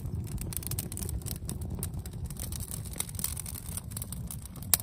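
Campfire of split wood and cardboard burning in a metal fire ring, crackling with many small pops over a low steady rumble, one pop louder near the end.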